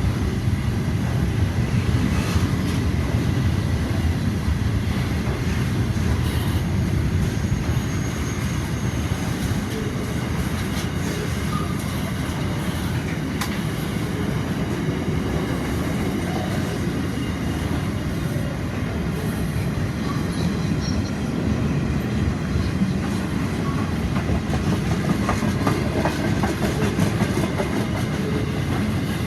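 A long freight train's wagons rolling steadily past, a continuous rumble of steel wheels on the rails with faint clacking.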